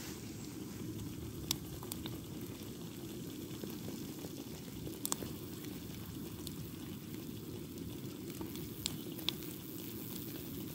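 Eggs frying in a pan over a butane/propane canister camping stove: a steady low rush from the burner and pan, with faint sizzling and a few sharp pops scattered through.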